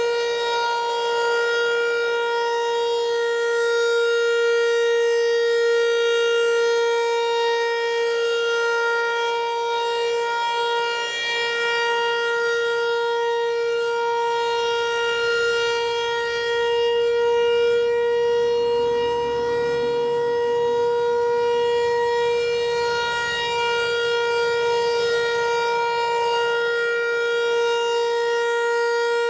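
Federal Signal Equinox outdoor warning siren sounding a steady tone during its quarterly test. The pitch holds level throughout.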